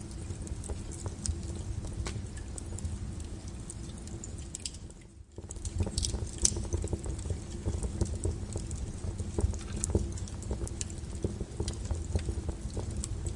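Wood fire burning, with irregular sharp crackles and pops over a steady low rumble of the flames. The sound drops out briefly about five seconds in, then comes back.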